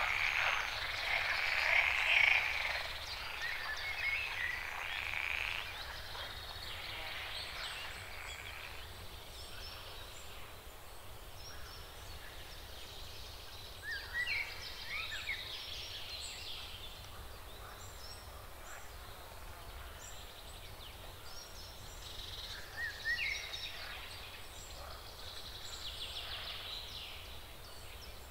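Faint outdoor nature ambience: a steady chorus of small animal calls, stronger in the first few seconds, with short chirps about halfway through and again later.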